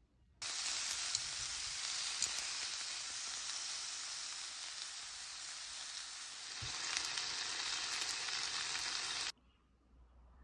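Slices of pork belly sizzling as they fry in a pan, a dense, steady hiss. It starts suddenly just under half a second in and cuts off abruptly about a second before the end.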